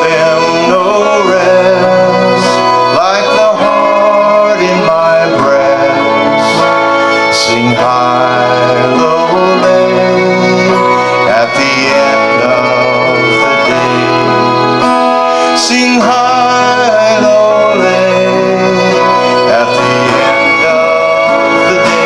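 Acoustic folk band playing an instrumental break, a wavering melody line over guitar accompaniment.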